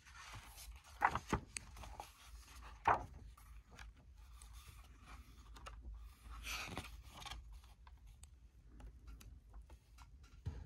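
Pages of an old hardcover book being turned by hand: faint paper rustling and a few soft taps, with one longer swish of a page a little past halfway.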